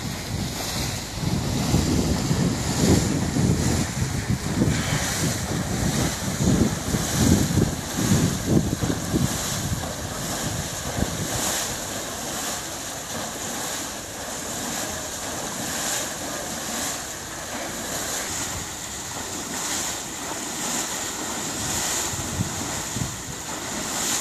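Liberty ship's propeller turning slowly with its blades breaking the water surface, churning and splashing in a regular beat about once a second. Wind buffets the microphone for the first half.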